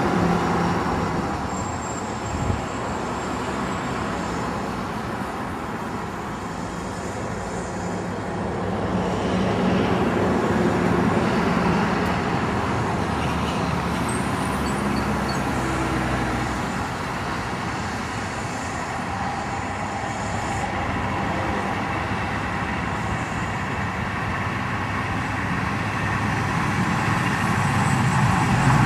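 Zillertalbahn diesel railcar approaching along the track. Its engine and running noise grow steadily louder near the end over a continuous rumble.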